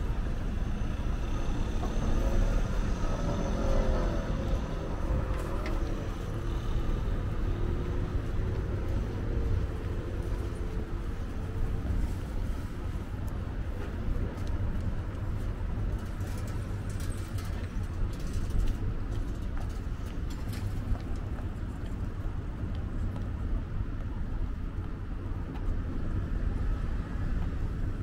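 City street traffic at a busy intersection: a steady low rumble of cars and vans, with one vehicle's engine standing out through roughly the first ten seconds before it fades.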